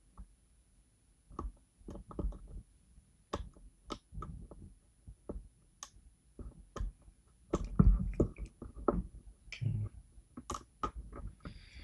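Lock pick and tension tool working the pins inside a Goal D9 lock: scattered small metallic clicks and taps at an uneven pace, busier and louder for a couple of seconds past the middle.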